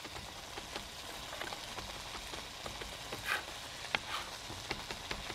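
Chef's knife chopping fresh rosemary on a cutting board, a run of light irregular taps with a few sharper knocks, over a steady sizzle of potatoes frying in olive oil in a skillet.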